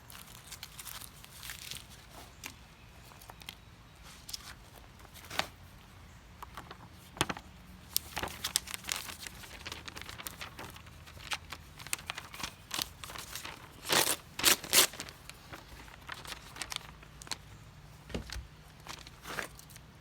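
Freshly sharpened Swiss Army knife blade test-cutting material: irregular crinkling, tearing and slicing sounds with sharp snaps, the loudest run of cuts about two thirds of the way through.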